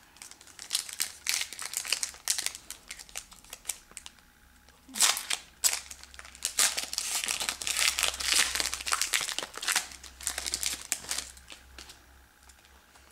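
Hockey card pack wrapper crinkling as it is opened and handled, in two spells with a short break about four seconds in.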